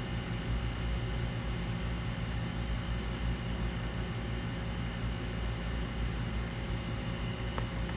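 Hot air rework station blowing steadily, a continuous hiss over a low hum, while a chip is being desoldered from a laptop logic board. A faint click near the end.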